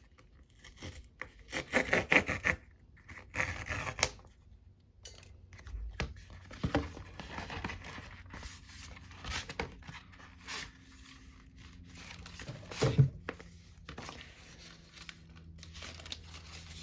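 Packaging of a paper-feel screen protector being torn open: two loud ripping tears about two and three and a half seconds in, then lighter crinkling and rustling as it is handled, with a short knock about thirteen seconds in.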